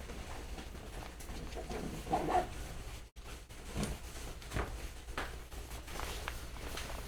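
Faint scattered clicks and light rustling of small objects being handled, with a brief low murmur about two seconds in.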